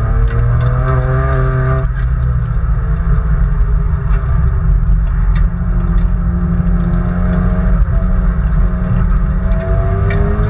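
Nissan Skyline R33 GT-R's twin-turbo straight-six running hard on track, heard from inside the cabin. The engine note climbs, drops suddenly about two seconds in, holds lower through the middle, and climbs again near the end.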